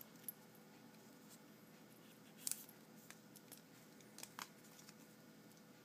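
Near silence, broken by a few faint, short clicks and taps from handling a plastic-cased wristwatch, a close pair of them about two and a half seconds in and two more around four seconds in.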